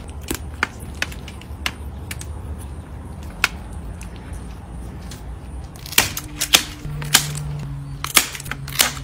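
Kitchen shears snipping through bamboo skewers: a series of sharp clicks and snaps, loudest and closest together over the last three seconds. Background music plays under it.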